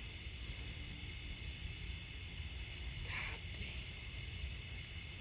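Steady chorus of crickets and other night insects, with a low steady rumble underneath.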